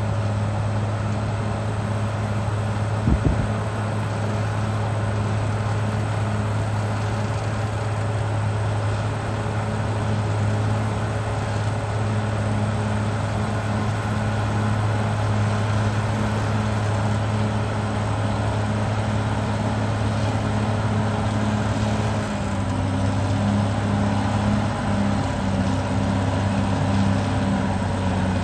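Caterpillar D6R XL bulldozer's diesel engine running steadily, with one short knock about three seconds in. Near the end the engine note drops slightly.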